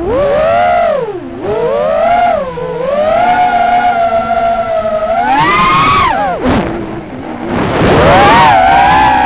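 Motors and propellers of an Armattan Rooster 6-inch FPV quadcopter whining in flight, the pitch swooping up and down with the throttle. It dips sharply a few times and settles at a higher, steadier whine near the end.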